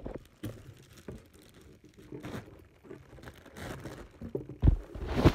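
Clear plastic wrapping crinkling and tearing as a plush toy is handled and pulled from its bag, with a couple of louder bumps near the end.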